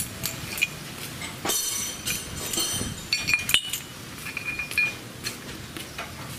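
Steel gears and hand tools from a Kubota DC105X combine harvester's dismantled gearbox clinking and rattling as a tool is worked against a gear on its shaft: a string of sharp metal clinks and short scrapes with brief high ringing, the loudest a little past three and a half seconds in.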